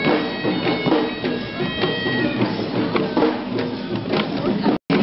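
Sri Lankan procession music: hand drums beaten in a steady rhythm under a shrill reed pipe playing high held notes. The sound cuts out for an instant near the end.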